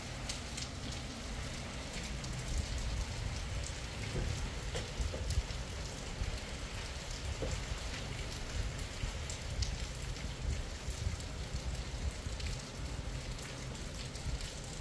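Steady rain falling on hard surfaces, a constant hiss dotted with many small drop ticks.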